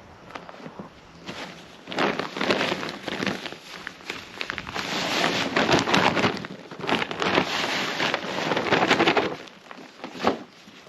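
Hands digging and rummaging through damp potting soil, a dense crackling rustle with many small crunches, from about two seconds in until near the end.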